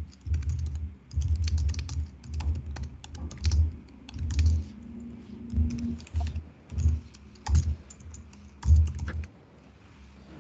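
Typing on a computer keyboard: quick, irregular runs of key clicks, each with a dull thump.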